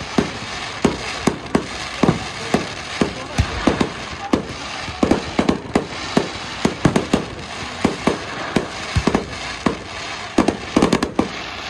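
Fireworks display going off: a rapid, irregular series of sharp bangs, about two or three a second, over a continuous crackle.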